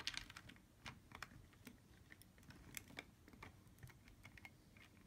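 Faint, irregular light clicks of plastic knobs and gears as the knobs of a fully mechanical desktop robot arm are turned by hand to move the arm. There is a quick cluster of clicks at the start, then scattered single ticks.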